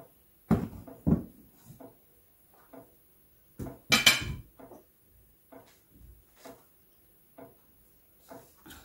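Dishes knocking and clattering on a table as a plate is set down, with small chewing sounds in between. The loudest and sharpest clatter comes about four seconds in.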